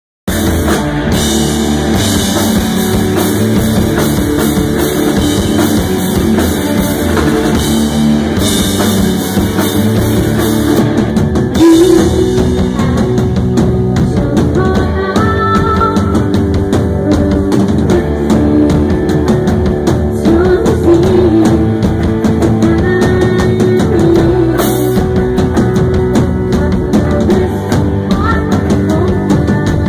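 A rock band playing live and loud: electric guitars over a drum kit.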